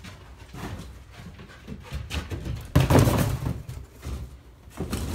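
Empty cardboard boxes being bumped and shoved by a young Belgian Malinois pushing through them, with light knocks and scuffs and one loud hollow thump about three seconds in.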